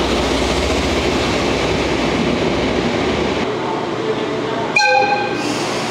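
DE10 diesel-hydraulic locomotive moving past close by, with a deep engine rumble. Near the end, a brief loud tone with several pitches sounds for about half a second.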